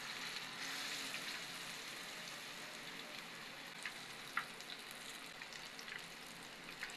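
Batter-coated fish pieces frying in shallow hot oil in a flat pan: a steady sizzling hiss with occasional sharp crackling pops, the loudest about halfway through.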